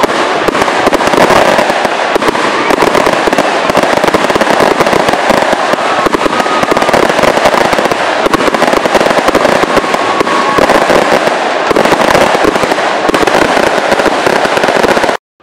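A long string of firecrackers going off in a rapid, continuous crackle of pops, cutting off suddenly near the end.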